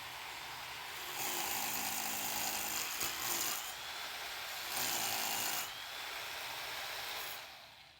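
Electric drill boring into a concrete wall, running continuously with two louder stretches of heavier drilling, then winding down near the end.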